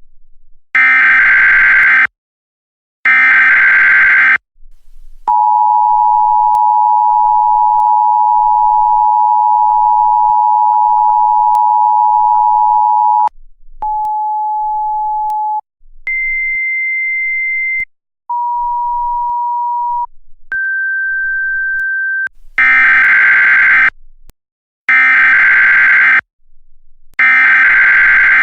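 Emergency Alert System tones: three short buzzy data bursts, then the two-tone attention signal held for about eight seconds. Then come four shorter single steady beeps at changing pitches, low, high, low, middle, and three more data bursts near the end.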